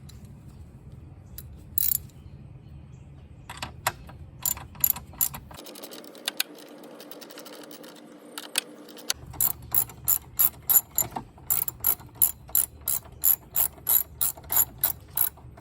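Ratchet wrench clicking as the nut on a car battery's hold-down bracket is loosened. The clicks come in scattered strokes at first, then settle into a steady run of about three a second.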